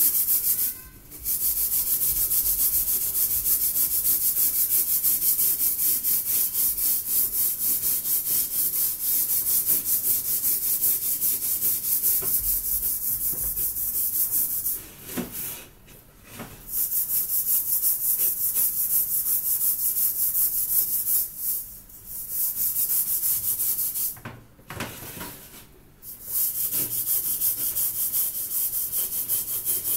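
Hand-held scourer scrubbing burnt-on black deposits off the bottom of an upturned metal pot in fast, rasping strokes, broken by a few short pauses.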